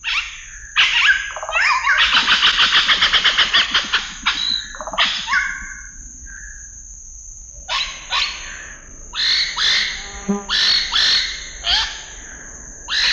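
Scarlet-rumped cacique calling: loud, sharp calls, with a fast rattling series of about two seconds starting about a second in and a short whistled note after it. After a pause of about a second comes a run of quick separate calls.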